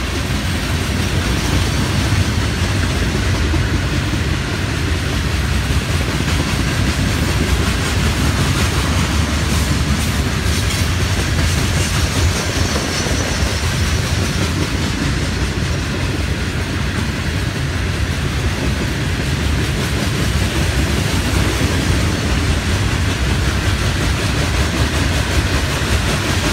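Loaded freight cars, rock gondolas and hoppers, rolling past at close range: a loud, steady rumble of steel wheels on rail, heaviest in the low end.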